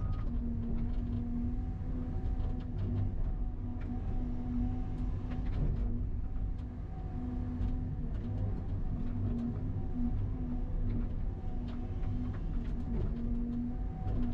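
Excavator engine and hydraulics running, heard from inside the cab: a steady low drone with a hum that comes and goes in short stretches as the arm works. Scattered crackles come through as the bucket tears through tall dry grass and brush.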